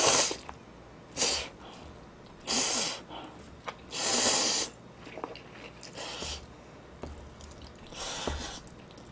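Instant ramen noodles slurped off chopsticks in about six short noisy draws, one to two seconds apart.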